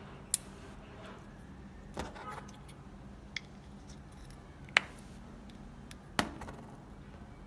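Small plastic parts of a round stick-on blind-spot mirror and its swivel mount clicking and tapping as they are handled and pressed together by hand. There are five sharp clicks, the loudest about two-thirds of the way in, with a brief rustle of the adhesive pad's backing near the second.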